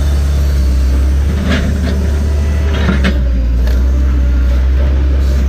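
Diesel engine of a heavy tracked machine running steadily under load, heard from inside the cab as a loud low drone, with a few short metal rattles from the machine.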